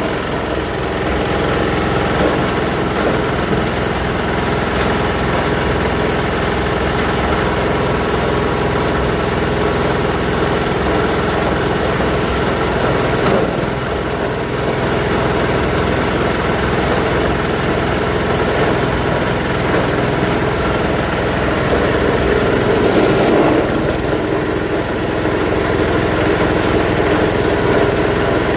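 Coconut husk grinding machine running steadily, its motor giving a continuous loud drone with a few brief swells in the grinding noise.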